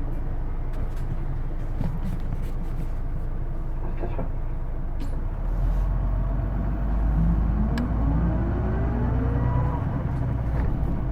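Interior running sound of a Hino Blue Ribbon II city bus (PJ-KV234L1): a steady diesel rumble with a few light rattles. About halfway in, the engine note strengthens as the bus accelerates, and a whine rises in pitch, then levels off. The uploader likens this whine, the bus's distinctive transmission sound, to an automatic gearbox.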